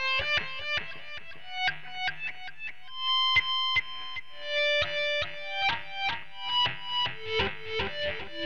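Ibanez RG370DX electric guitar played through a Line 6 POD 2.0 amp modeller: a single-note melodic line of quick picked notes, with one longer held note around the middle.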